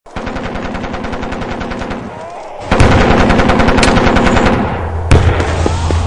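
Machine-gun fire in rapid, evenly spaced shots, a louder burst starting a little under halfway in, then a heavy boom near the end followed by a low rumble, as in a trench-warfare battle ambience.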